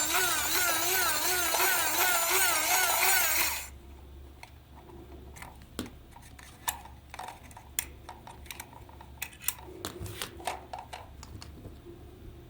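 Small electric motor and gearbox of a toy dinosaur running, its whine rising and falling in pitch about two to three times a second, then cutting off suddenly a little over three seconds in. Scattered light clicks and taps follow.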